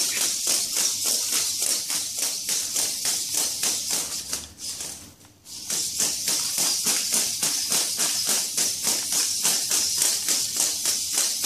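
3D-printed hexapod robot walking on concrete: its servo-driven plastic legs tap and rattle in a fast, even rhythm of about five ticks a second. The rattle drops away for about a second near the middle.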